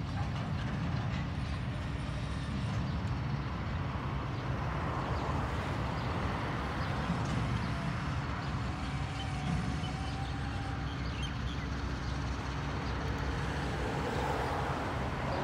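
A distant shunting locomotive makes a steady low rumble. A faint thin whine sounds for a couple of seconds about eight seconds in.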